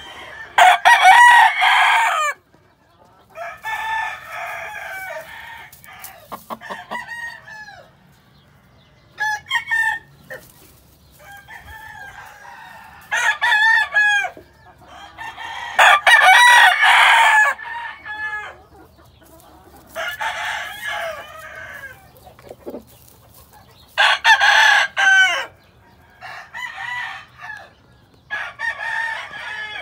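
Gamefowl roosters crowing again and again, about nine crows, the loudest about a second in, near the middle and about four-fifths of the way through, with fainter crows and short clucks in between.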